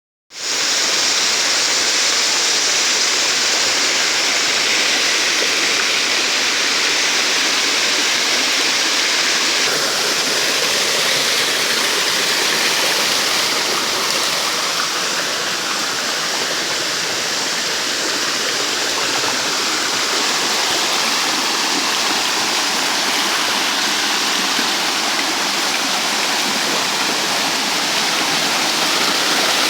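Rushing water from a waterfall or fast stream: a loud, steady rush that keeps up throughout.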